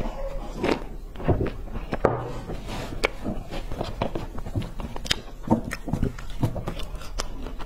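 Close-miked handling of crumbly stick snacks: a run of small knocks, scrapes and dry crumbly rustles as the sticks are gathered and stacked by hand on a tray, after a few swallowed sips of a drink near the start.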